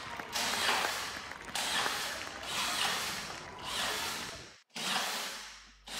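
Makita DFS452 18 V brushless cordless drywall screwdriver driving screws through plasterboard into a ceiling, in short runs of about one a second, each starting sharply and fading. The sound cuts out briefly a little past halfway.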